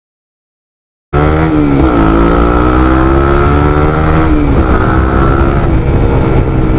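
Honda CBR150R's single-cylinder engine through a Yoshimura Alpha carbon full-system exhaust with its decibel-killer silencer fitted, pulling on the road. The sound cuts in suddenly about a second in. The revs climb and drop back three times, as at gear changes.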